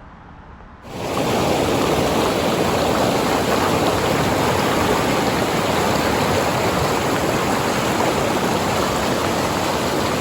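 Steady rush of fast-flowing creek water, cutting in abruptly about a second in and holding loud and even.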